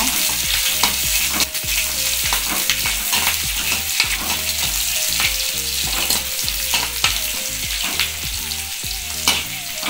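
Small onions sizzling as they fry in hot sesame oil, stirred with a metal slotted spatula that scrapes and clicks against the pan again and again.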